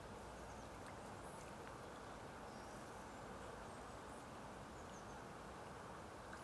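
Faint outdoor ambience: a steady hiss with small birds chirping thinly in the distance several times.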